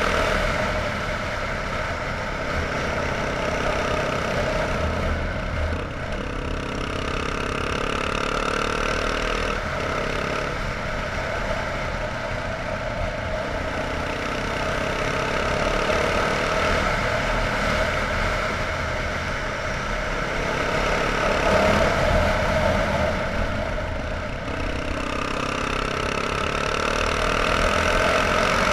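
Yamaha TT-R trail bike's single-cylinder four-stroke engine running under way, its revs rising and falling several times as the rider rolls on and off the throttle through the gears. Wind rumbles on the helmet camera's microphone.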